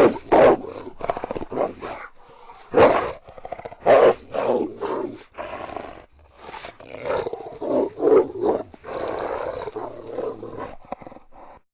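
Kitsune (fox spirit) creature sound effect: a series of harsh animal growls and snarling cries, some short and some drawn out, with short gaps between them. It stops abruptly near the end.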